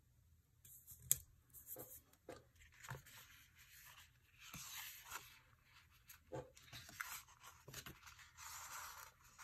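Faint paper handling: sticker sheets and planner pages rustling as a sticker is peeled off and pressed down, with scattered light clicks and taps.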